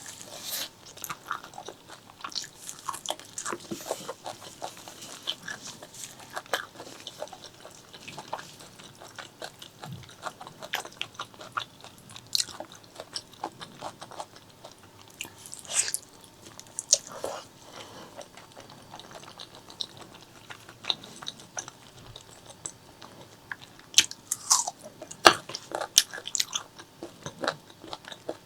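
Mouth sounds of eating spicy pork leg curry with white rice: chewing and biting with a quick run of short wet clicks, in louder clusters now and then.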